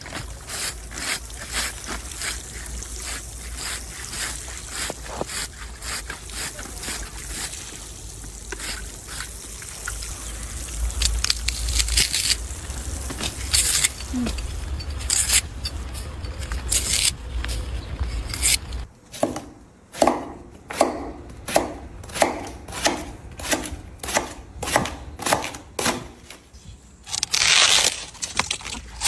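A blade making crisp cutting strokes through something crunchy. The cuts start as a dense crackle over a low hum, then about two-thirds of the way in turn into separate sharp slices, roughly two a second.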